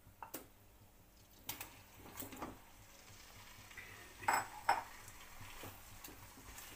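Utensils clinking and knocking against a kadhai as chicken is transferred into the hot oil and fried onions. Several separate clinks, the two loudest close together about four and a half seconds in, over a low sizzle that starts about two seconds in.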